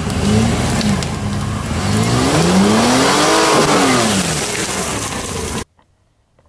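Mitsubishi Pajero's engine revving as the SUV drives through forest undergrowth. The revs rise to a peak about three and a half seconds in and fall away, and the sound cuts off suddenly about a second before the end.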